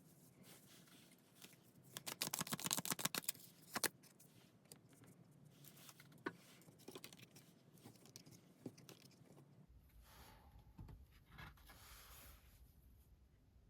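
Tarot cards being shuffled and handled. A quick run of rapid card clicks comes about two seconds in, followed by scattered taps and rustles. A low hum comes in near the end.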